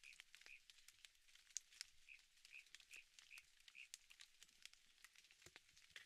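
Faint outdoor ambience: a small animal's short, high chirp repeated about two to three times a second, with scattered faint ticks and crackles.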